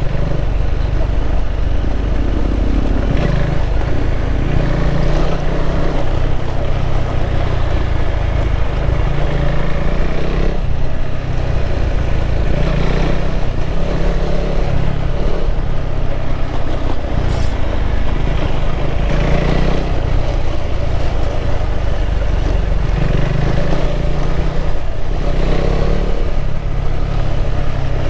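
KTM 390 Adventure's single-cylinder four-stroke engine running as the bike is ridden, its note shifting up and down with the throttle.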